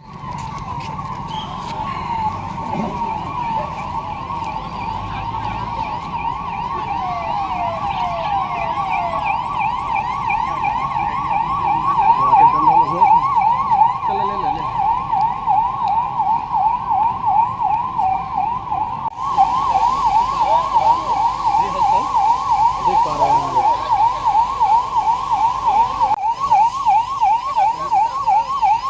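Electronic yelp siren sounding continuously, its pitch sweeping rapidly up and down several times a second, with an abrupt cut in the recording about two-thirds of the way through after which it carries on.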